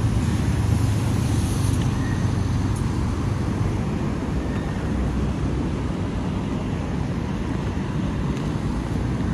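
Road traffic at a city junction: cars driving past with a steady low engine rumble, heaviest in the first two seconds.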